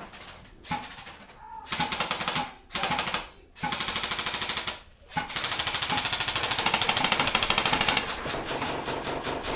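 Airsoft guns firing on full auto, a rapid, even rattle of shots. There are several short bursts, then one long continuous burst of about four seconds.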